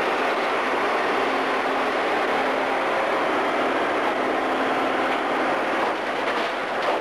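Hydraulic crawler excavator working in demolition: its diesel engine and hydraulics run under load amid a dense, steady clatter of rubble, with a few sharper knocks near the end as debris comes down.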